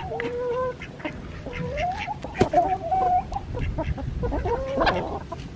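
A flock of chickens and ducks calling and clucking, with several drawn-out calls that waver up and down in pitch over a scatter of short clucks.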